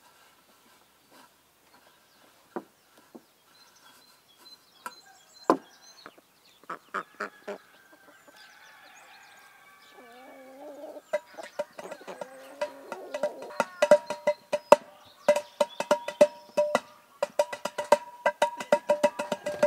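Chickens clucking amid scattered sharp knocks; about halfway through, music with a fast percussive beat comes in and becomes the loudest sound.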